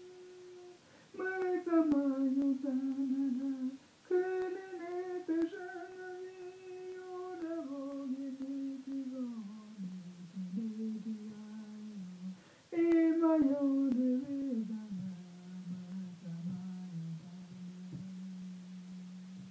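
A single voice humming a wordless icaro, the Peruvian shamanic healing chant, in long held notes that step down in pitch through each phrase. New phrases start high about one, four and thirteen seconds in, and the last one settles on a low note that is held to the end.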